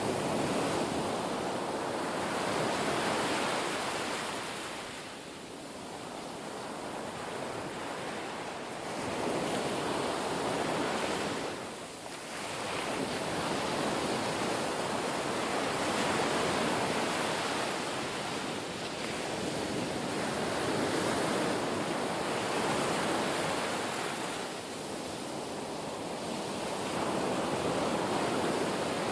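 Ocean surf: waves rushing in and washing back in a continuous hiss that swells and eases, thinning out briefly about three times.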